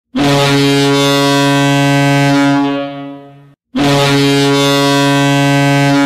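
Toronto Marlies goal horn sounding two long, deep blasts. The first fades out after about three seconds, and the second starts after a brief gap and holds steady.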